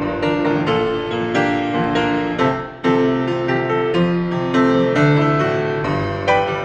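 Piano music: struck chords and melody notes in a steady, unhurried flow, with a brief break between phrases about three seconds in.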